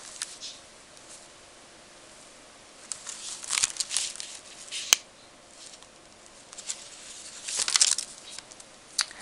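Paper rustling as pages of a spiral-bound notebook are turned, in a spell a few seconds in and again near the end, with two sharp clicks in between and at the close.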